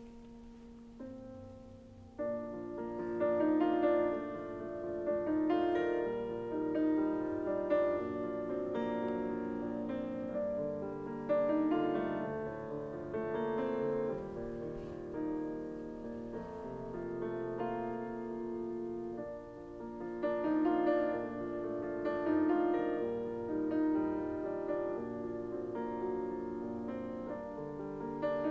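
Piano music, a few soft notes at first and growing fuller about two seconds in.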